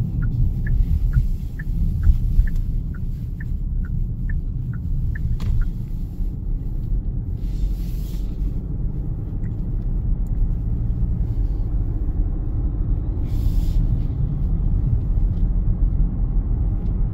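Genesis GV80's cabin road rumble while driving, with the turn-signal indicator ticking in an alternating tick-tock at about two to three ticks a second; the ticking stops about five and a half seconds in, leaving only the low rumble.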